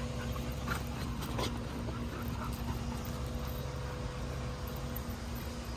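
Dogs at play, one giving a few short, high whines in the first few seconds, over a steady low hum.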